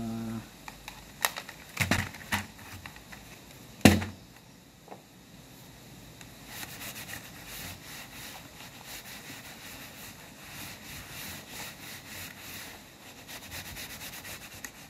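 A plastic computer keyboard knocking against the table a few times as it is handled, loudest about four seconds in; then a tissue rubbed quickly back and forth over the keyboard's plastic underside, a soft, steady swishing.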